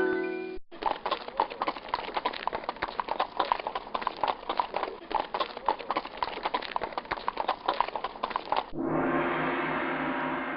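Galloping horses, a dense run of irregular hoofbeats. About nine seconds in they stop and a single gong strike rings out and slowly fades.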